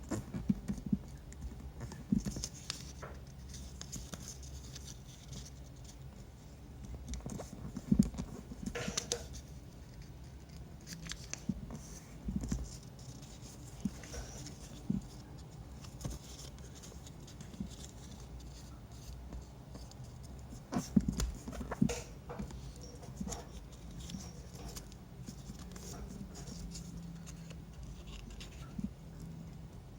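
Hands handling and folding a small sheet of paper: irregular crinkles, creases and light taps, with a sharper crackle about 8 seconds in and a cluster around 21 seconds.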